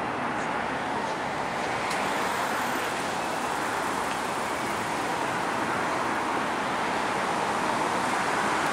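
Steady roar of road traffic with no distinct events, a continuous even noise.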